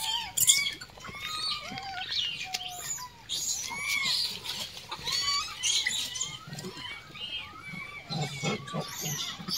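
Rhesus macaques calling: many short chirping calls, each rising and falling in pitch, overlapping one another at a steady pace. A few low thuds come near the end.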